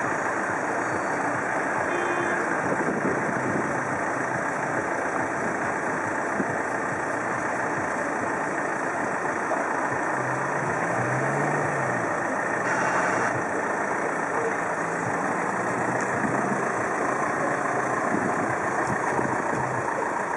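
Road traffic: car engines idling, then moving off and driving past, over a steady even noise.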